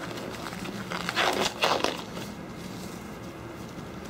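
Nitrile gloves crinkling and rustling on the hands, in a few short bursts about a second in, over a faint steady hum.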